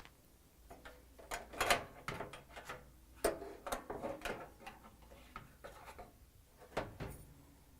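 Small metal parts, a dryer door hinge and its screws, being handled and set down: a run of irregular sharp clicks and clinks, some with a brief ring, with the loudest knocks near the start and again about seven seconds in.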